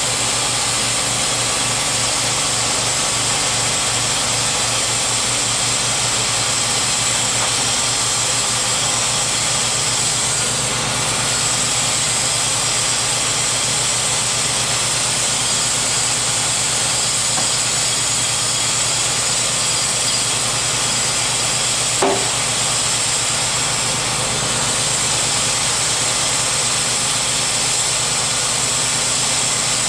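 TimberKing B-20 portable bandsaw mill's engine running steadily, with a single sharp click late on.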